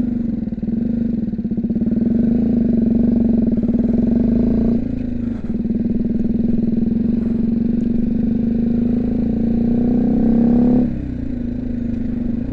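BMW G310GS's single-cylinder engine running under way, a steady note that drops briefly about five seconds in and again near the end before picking back up.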